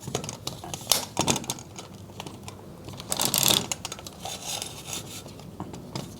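Irregular clicks and taps of plastic and metal parts as a tripod head is handled and fitted back onto the tripod, with a louder scraping rattle about three seconds in.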